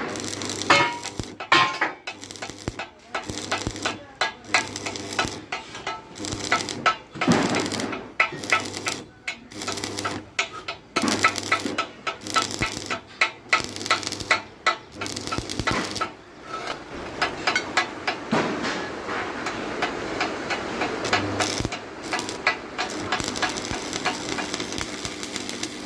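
Electric arc welding crackling and sputtering, in short runs with brief breaks, then a steadier unbroken crackle over the last third.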